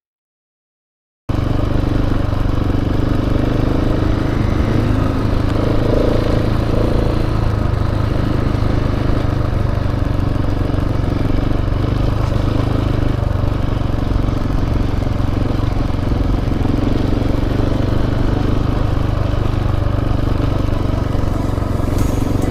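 Off-road motorcycle engine running at a steady riding pace. It comes in abruptly about a second in, after a moment of silence.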